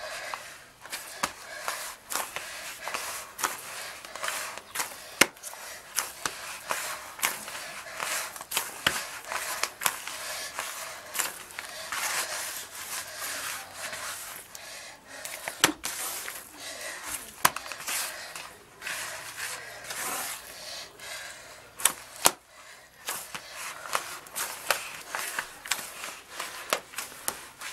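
Hands kneading a soft, unleavened flour, milk and water dough in a plastic bowl: an irregular stream of pressing, slapping and rustling, with sharp knocks of the bowl and a few louder knocks scattered through.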